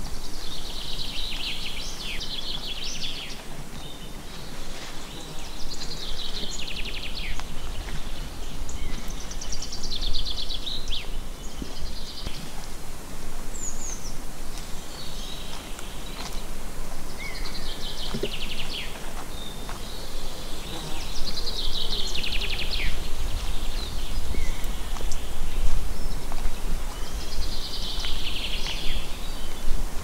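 Woodland birdsong: a songbird repeats a short trilled song phrase, each about two seconds long, every three to four seconds, with other birds calling faintly. A steady low rumble runs underneath.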